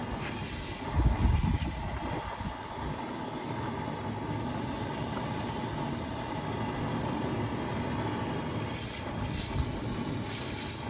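Steady rumbling hiss of a gas fire burning under a pot of rice boiling in broth, with a few low thumps between one and two seconds in.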